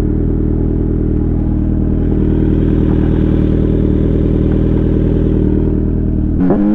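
Kawasaki Z900's inline-four engine through an Akrapovič full-system exhaust, running loud at steady revs while riding. Near the end the low drone drops away and the pitch shifts sharply.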